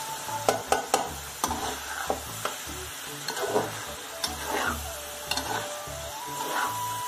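A metal spatula stirs cauliflower through a meat masala frying in a steel karahi, bhuna stage: sizzling throughout, with irregular sharp clinks and scrapes where the spatula strikes the pan.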